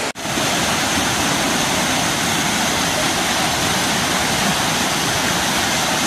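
Waterfall spilling down stepped rock ledges into a pool: a steady, even rush of water.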